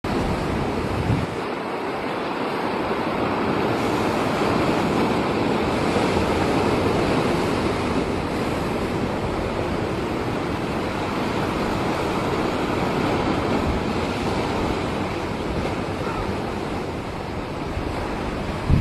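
Steady rush of sea surf and wind buffeting the microphone, with a brief low wind thump about a second in.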